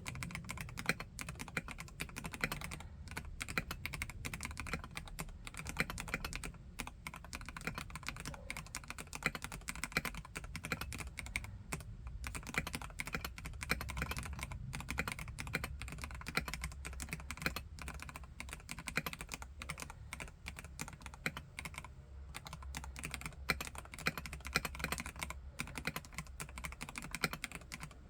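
Steady, fast typing on a Vortex KBt RE:68 mechanical keyboard with Gateron G Pro Red linear switches: a dense, continuous run of keystroke clacks with only a few brief pauses.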